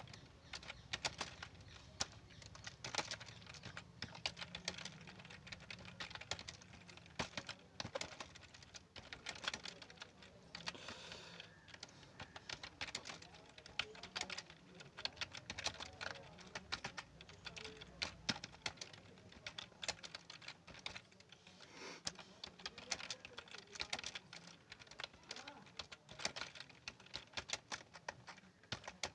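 Continuous fast typing on a computer keyboard: a quick, uneven stream of key clicks.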